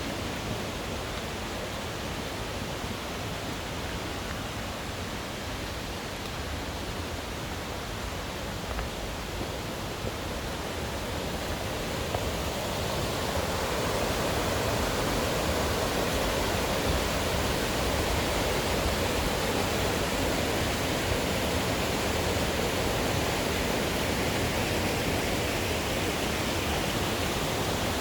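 Rushing water of a mountain stream with waterfalls, a steady wash of noise that grows louder and fuller about halfway through.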